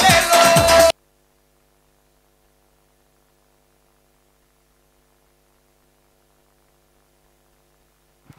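Dance music with Spanish vocals that cuts off suddenly about a second in, leaving near silence with a faint steady mains hum; a small click comes near the end.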